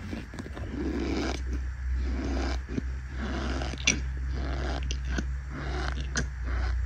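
Cornstarch squeaking and crunching as fingers press into a packed mound of it: a series of short, creaky crunches, one or two a second, with a sharp crack about four seconds in, over a low steady hum.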